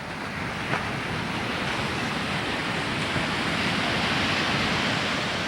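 Ocean surf: the rush of a wave washing in, swelling over about four seconds and then easing a little.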